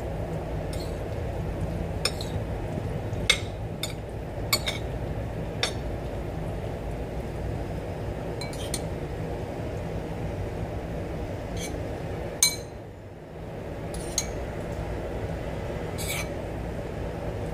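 A metal spoon clinking against ceramic bowls: about ten light, irregular clinks as seasoning is scooped from a small bowl onto a dish of black fungus salad, over a steady low hum.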